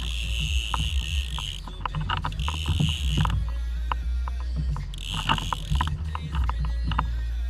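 Fishing reel clicking and rasping in stretches of about a second, over a low steady rumble.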